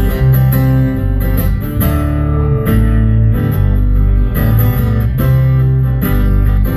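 Acoustic guitar strummed through a run of chords with a strong bass line: the instrumental closing bars of a song, with no singing.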